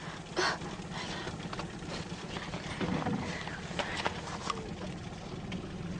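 Water lapping and slapping against the side of a small boat, with a few light, irregular splashes and knocks.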